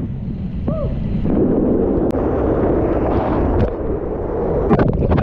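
Wind buffeting the microphone, a loud steady rushing rumble. A short tone rises and falls about a second in, and a few sharp clicks come near the end.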